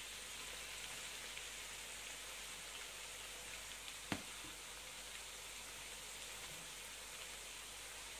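Faint steady sizzling hiss from a steel pan of fried chicken and vegetables on the gas stove as boiled rice is tipped in, with one sharp click about four seconds in.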